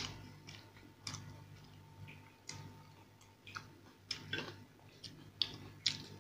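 Close-up eating sounds: a metal spoon clinking and scraping in a ceramic bowl of sambar, with wet mouth clicks from chewing, a sharp click every second or so.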